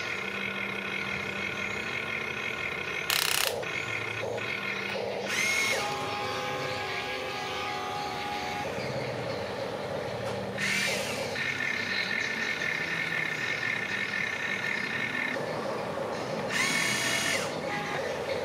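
Electric motors and gearing of a remote-control excavator whining steadily, with four short, louder whirs as the machine works.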